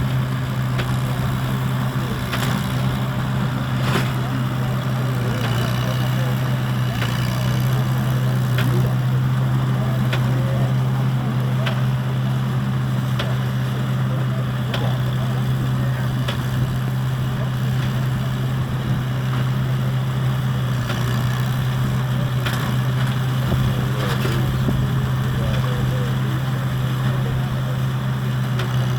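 Arthur Young hay baler, about 80 years old, running in operation: a steady mechanical drone with a strong low hum, and sharp knocks recurring about every two seconds.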